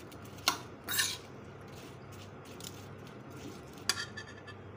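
Steel spoon stirring chopped apples in a stainless steel bowl, clinking and scraping against the metal: a sharp clink about half a second in, a longer scrape around one second, and a couple of clinks near the end.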